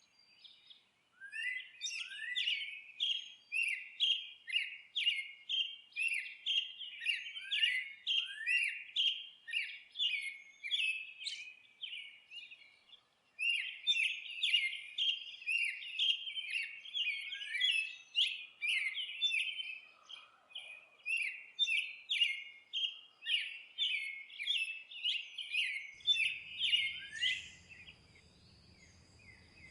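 A songbird singing long runs of quick, downward-sweeping chirps, about two or three a second, with a short pause partway through. Near the end the chirping stops and a faint low rumbling noise comes in.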